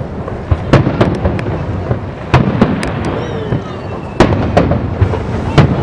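Aerial fireworks bursting overhead: about eight sharp bangs at irregular intervals, over a continuous low rumble.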